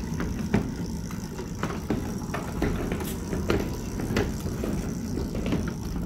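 Battery-electric ride-on scale locomotive with a chain-driven electric traction motor running along its track, a steady rumble with frequent irregular clicks and knocks from the wheels on the rails and a faint steady high whine.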